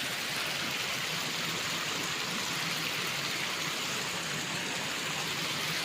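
Steady rush of flowing water over rocks, an even hiss without a break.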